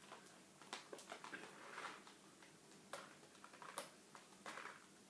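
Faint scattered clicks and short rustles of a small cardboard BeanBoozled box being handled and pried open by hand.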